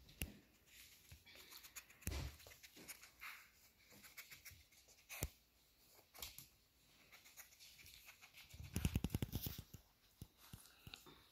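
Faint scuffling and light clicks as a Yorkshire terrier puppy moves about under a stroking hand, with a quick rattling flurry of clicks about nine seconds in.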